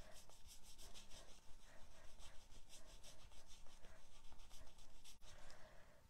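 Water brush stroked back and forth over shimmery white watercolour cardstock, a faint, quick, rhythmic brushing. The paper is being wetted all over with plain water before any colour goes on.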